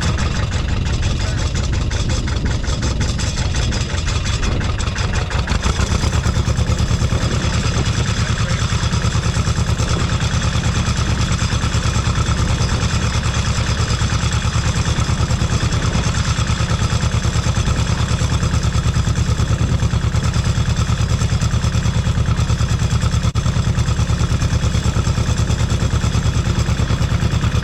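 Tractor engine running at a steady speed with an even, rapid firing pulse, getting a little louder about six seconds in.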